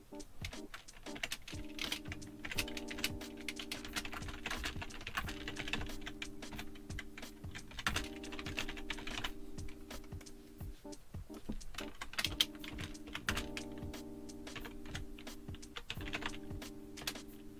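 Typing on a computer keyboard: a steady run of quick key clicks with short pauses.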